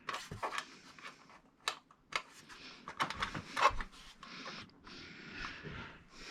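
Hands handling small plastic parts of a TV's LED backlight: scattered light clicks, rustles and scraping, with one sharper knock about three and a half seconds in.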